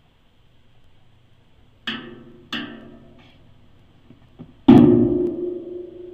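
Playback of a home-recorded sample of sharp knocks on some object: two quick knocks, then about a second later a much louder knock whose low ringing tone fades away over a couple of seconds.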